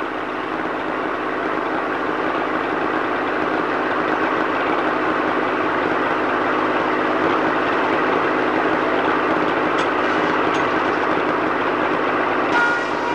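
Sawmill machinery running steadily, a continuous engine-like noise that swells a little. Near the end there is a short sharp knock followed by a brief tone.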